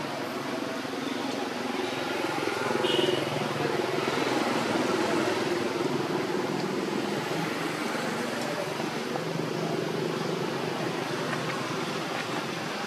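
A motor vehicle's engine running with a low hum under a wash of noise, growing louder about three seconds in and slowly fading.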